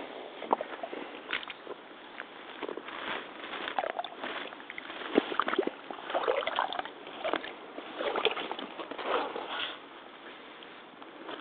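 Mitsuuma crotch-high rubber waders stepping through waterlogged mud, grass and shallow water: uneven wet footsteps, several a second at times, with no steady rhythm.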